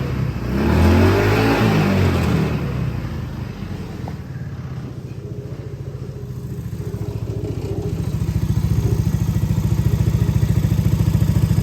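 Hammerhead R-150's GY6 150cc single-cylinder engine running on a freshly fitted replacement carburetor. It is revved once in the first couple of seconds, then settles into a steady idle that grows a little louder about eight seconds in.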